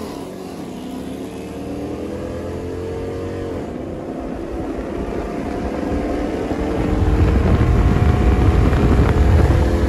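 Dodge Challenger R/T's HEMI V8, with aftermarket intake and exhaust, at full throttle in a roll race, heard from inside the car with a second V8 muscle car alongside. The engine note climbs, drops at an upshift about three and a half seconds in, then climbs again, getting louder with a deep rumble from about seven seconds.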